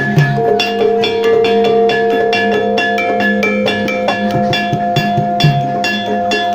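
Gamelan ensemble playing jaran kepang music: quick, even strokes on metal-keyed instruments over long ringing gong tones, with drum strokes underneath.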